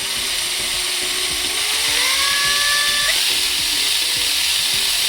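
Electric drill running steadily, spinning a cotton ear swab coated in cooktop polish inside a small carburettor hole to clean it where a spring-loaded part slides. The motor's pitch rises briefly about two seconds in.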